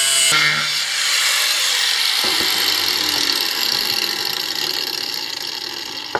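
Angle grinder cutting into a metal part, then taken off the cut about a third of a second in and left spinning down. Its whine slowly fades and falls in pitch, and it stops with a click near the end.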